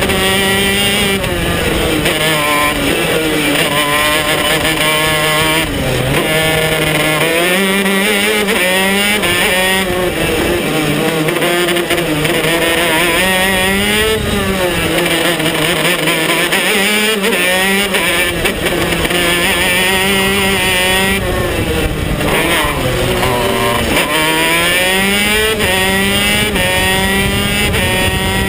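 KZ125 shifter kart's 125 cc two-stroke engine at racing speed, heard from on board, its pitch repeatedly rising under acceleration and falling back into the corners, with a run of short climbs near the end as it pulls down the straight.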